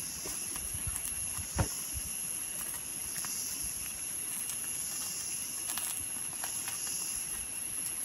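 Insects buzzing, a high hiss that swells and fades about every second and a half to two seconds over a steady high whine, with one short knock about a second and a half in.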